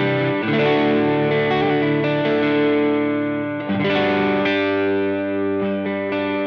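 Electric guitar played through a Cornerstone Antique Classic Drive V2, a Tube Screamer-style overdrive pedal, with a lightly overdriven tone. It plays ringing chords that change about half a second in and again just before four seconds.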